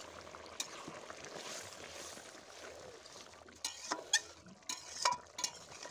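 Fish curry boiling in a metal wok, a steady bubbling hiss. A little over halfway in, a spatula starts stirring the curry, clinking and scraping against the pan several times.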